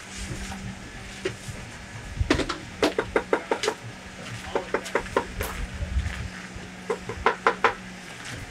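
Metal gallon paint can knocking and tapping against the rim of a plastic bucket in several quick clusters while it is emptied into the bucket, with a steady low hum underneath.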